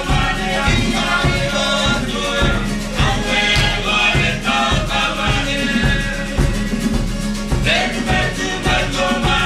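Live Cook Islands music for a dance: several voices singing together over a steady drum beat, about two beats a second.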